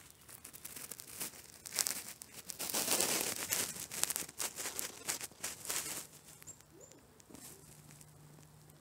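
Close rustling and crinkling of leaves and handling against the microphone, a run of scratchy bursts that dies away after about six seconds. A faint steady low hum comes in past the middle, with two brief high chirps.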